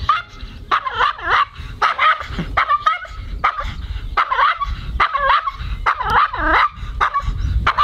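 Maltese bichon barking over and over in rapid, high-pitched yaps, in quick runs of three or four. It is his defensive, fear-driven reaction to a large dog close in front of him.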